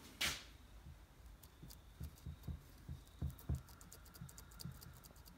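Faint clicking of a Stihl saw chain being wiggled side to side by hand in the groove of its Rollomatic guide bar, a brief rub near the start, then scattered light ticks and soft knocks. The chain rattles loose because the bar's groove is worn wide and its edges are mushroomed over.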